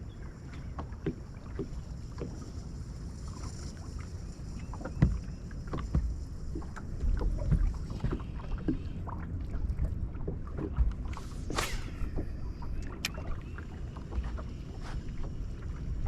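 Small fishing boat on the water: a steady low rumble of water and wind around the hull, with scattered light clicks and knocks, and a brief whoosh about eleven seconds in.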